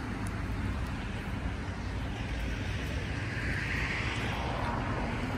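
Outdoor traffic noise: a passing vehicle's hiss swells and fades about three to four seconds in, over a steady low rumble.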